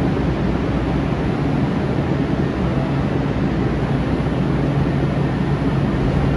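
Sound Transit Link light rail train standing at an underground platform, its onboard equipment running with a steady hum over an even rushing noise.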